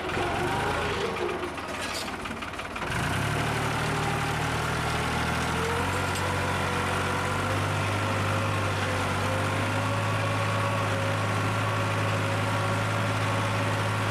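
Tractor's diesel engine running steadily while pulling a tine cultivator through the soil. It gets louder and steadier about three seconds in, then holds an even drone.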